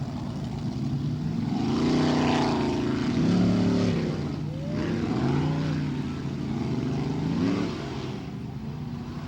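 Racing boat engines running, with the pitch rising and falling several times as they are revved, more than one engine at once.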